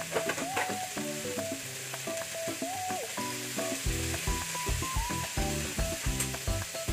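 Sliced bitter gourd sizzling as it fries in an aluminium pan, stirred with a spatula about midway. Background music with a steady bass beat plays over it and grows louder in the second half.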